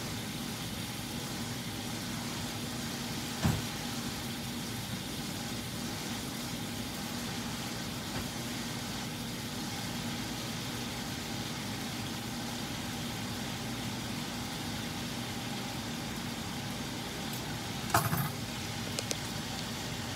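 Kitchen range hood exhaust fan running with a steady hum and hiss. A sharp knock comes about three and a half seconds in, and a louder knock with a brief ring near the end.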